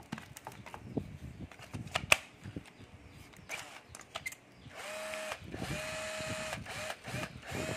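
A red 12 V cordless drill-driver is handled with clicks and knocks, one sharp click among them. From about five seconds in its motor runs in short spells with a steady whine, spinning up at each trigger pull in a no-load test run.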